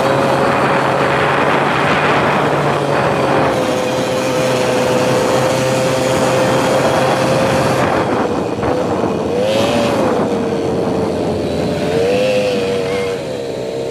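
Quad bike (ATV) engine running at a steady pitch, with a rushing noise like wind across the microphone. The engine note swells and drops back twice in the second half.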